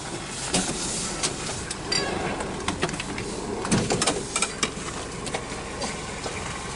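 A car pulling over and slowing to the roadside: a low rumble from the engine and tyres, with many scattered clicks and knocks.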